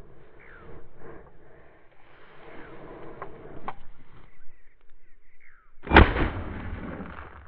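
Low rustling and scuffing, then a single loud shotgun shot about six seconds in, sudden and dying away over a second or so.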